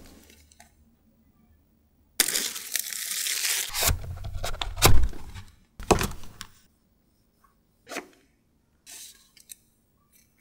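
Phone packaging being unwrapped: plastic wrap torn off the box for about a second and a half, starting two seconds in, then dull thuds of cardboard boxes set down on a table, the loudest about five seconds in. A few lighter knocks and rustles follow as the box is handled and opened.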